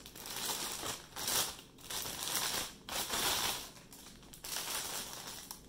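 Styrofoam packing and cardboard rubbing and scraping in four or five short bursts, as packed pieces are pulled from a cardboard box.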